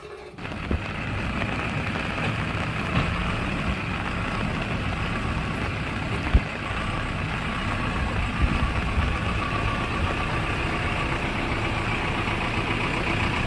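JCB 3DX Super backhoe loader's diesel engine running steadily as the machine manoeuvres, starting about half a second in, with a single sharp knock about six seconds in.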